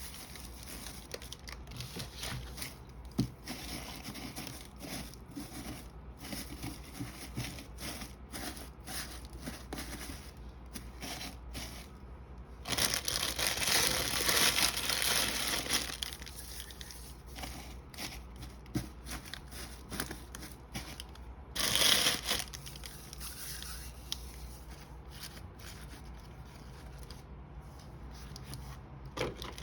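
Basket filler shred rustling and crinkling as it is handled and pushed down into gaps around a gift basket's contents. There is a louder stretch of crinkling lasting a few seconds about halfway through, and a brief loud burst a few seconds later.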